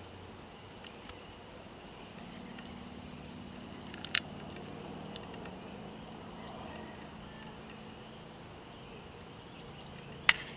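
Quiet outdoor ambience: a faint steady insect drone, a couple of short bird chirps, and a low distant hum, with a single sharp click about four seconds in.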